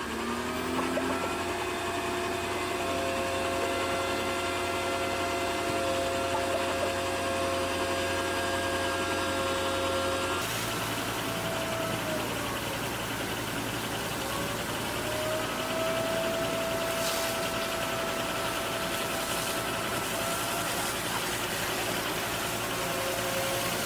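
Heavy-equipment engine running steadily, its pitch rising in the first second. About halfway through, the engine speed drops and then climbs back up.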